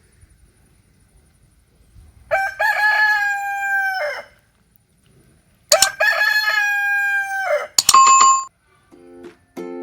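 A rooster crowing twice. Each crow is a long call, held steady, then falling off at the end. A brief higher note follows, and plucked-string music starts faintly near the end.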